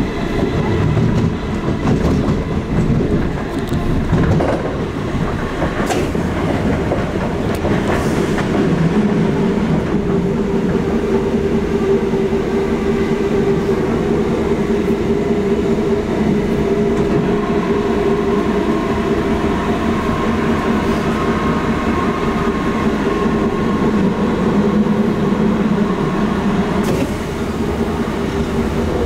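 Class 458 electric multiple unit heard from inside the carriage, running with a steady whine from its nose-suspended traction motors and gears. A few sharp clicks of the wheels over rail joints come through.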